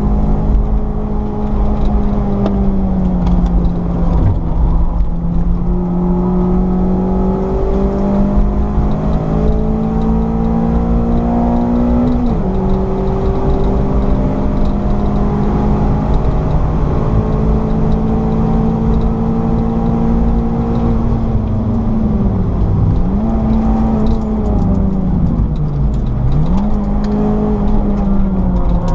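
Citroën C4 VTS's four-cylinder engine running at high revs on track over a heavy low rumble. Its pitch climbs slowly and drops sharply about twelve seconds in, as at a gear change. Later it dips and climbs back twice near the end.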